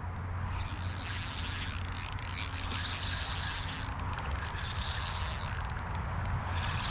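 Spinning reel being cranked to retrieve line: a steady high whir from the reel's gears and rotor, with a short break about four seconds in and stopping near the end.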